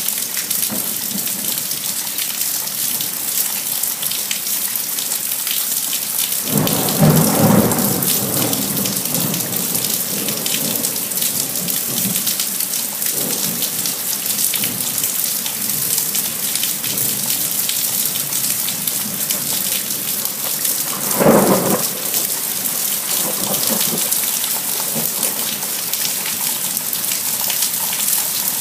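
Thunderstorm: steady heavy rain hissing, with two claps of thunder, a longer rumble about seven seconds in and a shorter, sharper clap about twenty-one seconds in.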